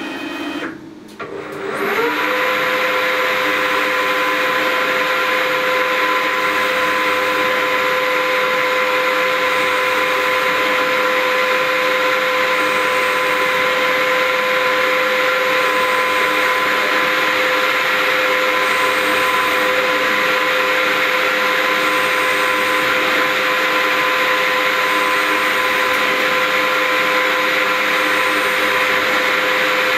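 Grizzly G4003G metal lathe, converted to CNC, spinning up about two seconds in and then running steadily with a constant whine at 600 RPM while it cuts a fine thread on thin-wall tubing.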